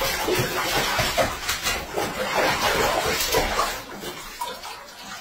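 Bathwater splashing and sloshing in a tub as a dog moves about in it, in irregular splashes that ease off after about four seconds.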